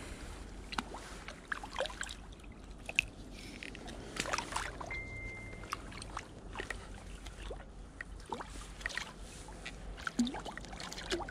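Light splashing and sloshing from a small fish hooked on a lure, working at the water surface, with scattered small clicks and knocks.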